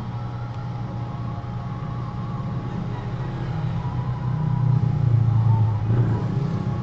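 Low rumble of a motor vehicle's engine, swelling louder toward the middle and peaking about five seconds in, like a vehicle passing.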